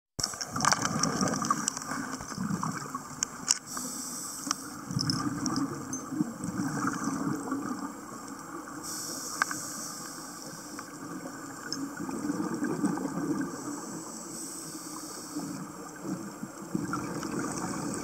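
Scuba divers' exhaled regulator bubbles rushing and gurgling underwater in irregular surges, with a few sharp clicks.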